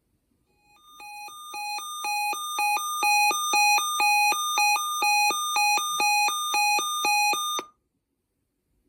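A weather radio receiver's alert alarm: rapid beeps switching back and forth between two tones, rising in volume over the first couple of seconds, then cutting off suddenly. This is the receiver going off for an incoming severe weather alert.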